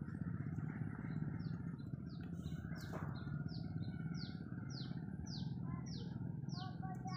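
A bird calling a repeated series of short, high, falling chirps, about two a second, over a steady low hum.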